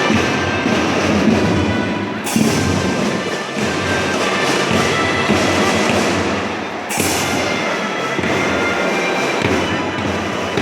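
School drum band playing, with marching drums and cymbals. Loud cymbal-like crashes come in about two seconds in and again about seven seconds in.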